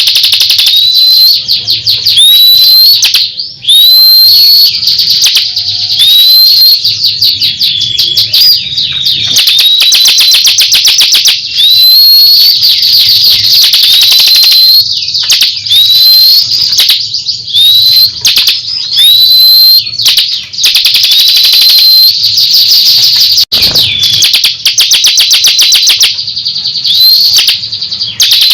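Ciblek kristal singing continuously and loudly: fast, dense trills of rapid ticking notes, laced with repeated short upswept whistles.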